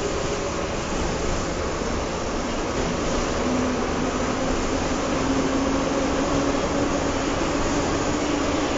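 Moscow Metro subway car running, heard from inside the passenger car: a steady rumble and rush with a faint hum whose pitch drops a little over the first few seconds and then holds.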